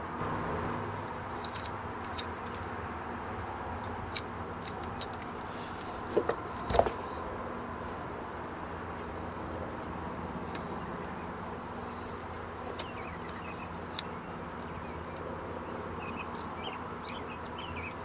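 Scattered small clicks and crackles from handling the wiring of an old outdoor GFCI outlet as electrical tape is peeled off the wires, over a steady background hum.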